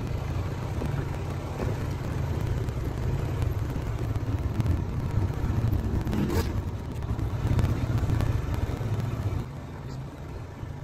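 Vehicle driving on a gravel road, heard from inside the cabin: a steady low rumble of engine and tyres, dropping in level about nine and a half seconds in. A single brief click about six seconds in.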